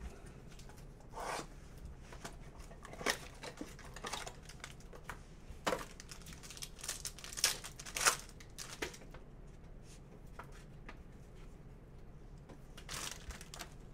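Trading card pack being torn open, the wrapper crinkling, with cardboard and cards handled in between. The tearing and crinkling is densest and loudest in the middle.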